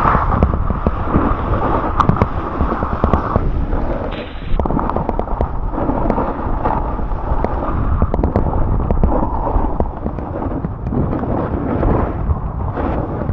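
Snowboard sliding down a ski piste: the board scraping and chattering over the snow, with wind buffeting the microphone as a heavy rumble.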